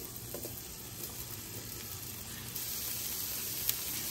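Diced potatoes sizzling in hot olive oil in a non-stick skillet, a steady hiss that grows brighter about two and a half seconds in. A single sharp click near the end.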